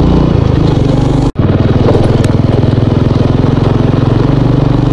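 Small motorcycle engine running steadily under way, heard from on the bike. The sound drops out for an instant about a second in.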